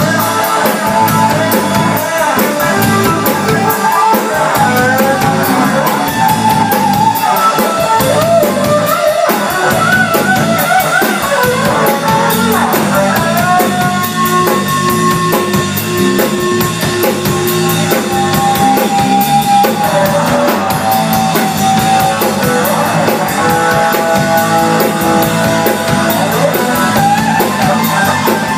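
Live rock band: a Stratocaster-style electric guitar playing a lead line full of bends and vibrato, with several long held notes in the middle, over a drum kit keeping a steady beat.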